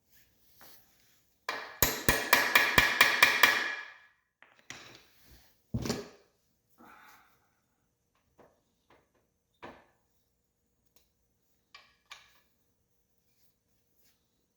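A quick run of about ten ringing metal-on-metal hammer strikes lasting under two seconds, followed by a couple of single clanks and a few light knocks as tools and parts are handled.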